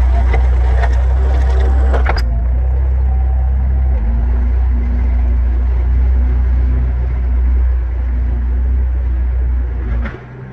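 Skid steer engine running with a hydraulic Harley power box rake, the rake's drum clattering through gravel for about the first two seconds, then a steady low engine drone. The sound drops sharply near the end.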